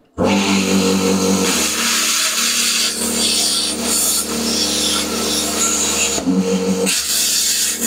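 Lidl plasma cutter cutting through steel plate: a steady buzzing arc under a hiss of air. The tone changes about a second and a half in and breaks briefly around six seconds in before going on.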